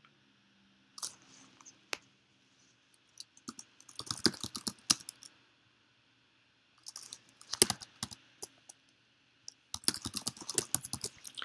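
Typing on a computer keyboard: short bursts of rapid keystrokes separated by pauses.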